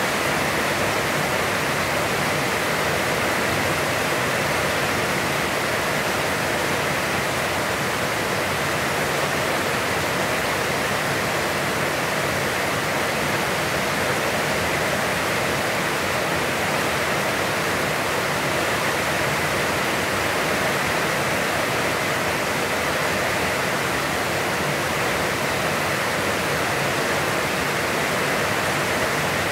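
Heavy, constant rain pouring down, a steady dense hiss that does not let up.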